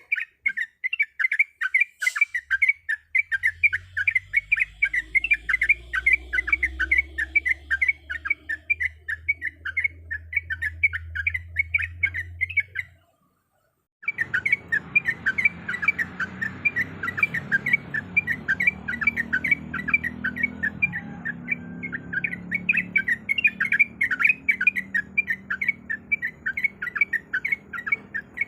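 Yellow-vented bulbul (trucuk) chirping fast and without pause, a rapid string of short high notes, which the material presents as a female calling for a male. The song breaks off for about a second midway and then resumes. A low hum runs underneath during the first half.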